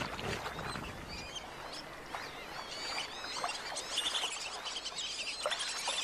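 Small birds chirping and twittering: many quick rising and falling whistles, growing busier from about four seconds in.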